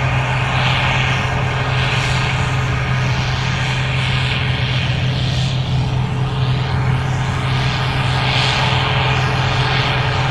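Gleaner R65 combine running while harvesting corn: a steady engine drone, with a higher hiss that swells and fades every second or so.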